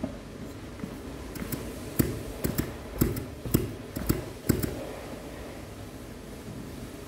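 Engine parts being handled during Peugeot 103 moped engine assembly: a quick run of about a dozen light, sharp clicks and taps in the middle of the stretch, over a steady low hum.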